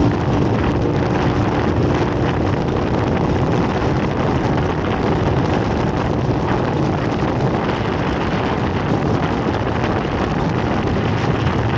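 Onboard sound of an off-road race vehicle under way: steady engine and driving noise mixed with wind buffeting the microphone.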